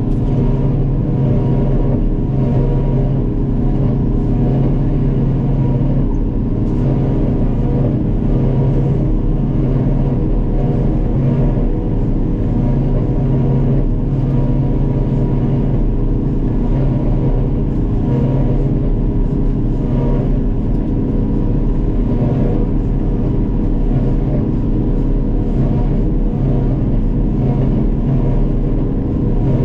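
Self-propelled forage harvester's diesel engine running steadily under load while chopping grass for silage, with a low hum that swells and eases every second or two.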